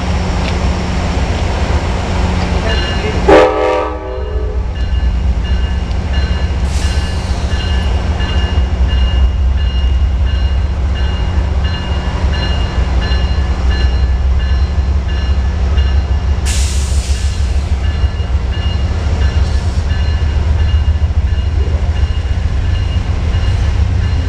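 Amtrak P42DC diesel locomotive running as it pulls slowly in, its engine a steady low drone. One short, loud horn blast sounds about three seconds in, and a bell keeps ringing after it. Two brief hisses come about seven and sixteen seconds in.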